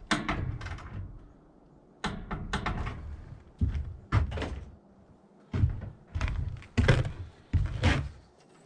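A series of about six dull thunks and clunks, some spaced close together, from hands-on work on a band sawmill's blade and band wheels during blade installation.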